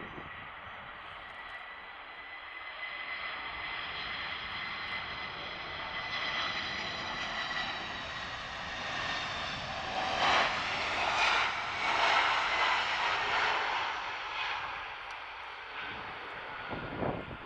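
Boeing 747-400 freighter's four jet engines passing on landing, a rushing jet noise with a steady high whine. It swells with a sweeping, phasing sound to its loudest about ten to thirteen seconds in, then fades.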